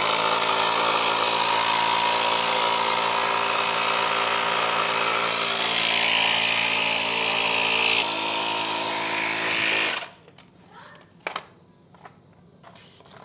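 Portable tire inflator running loud and steady, pumping air into a punctured motorcycle tire; its tone shifts slightly about eight seconds in, and it cuts off suddenly a couple of seconds later. A few faint clicks follow.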